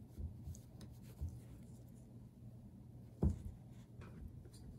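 Quiet handling noises from gloved hands working on a small chainsaw engine: parts rubbing and a few soft clicks, with one sharper knock about three seconds in.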